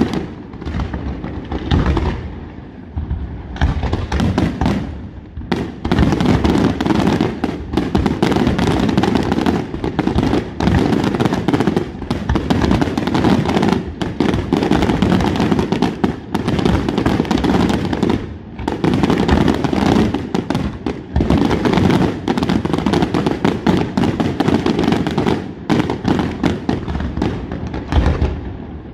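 Aerial fireworks display: a dense, continuous barrage of shell bursts, booms and crackling, with a couple of brief lulls before the bangs pick up again.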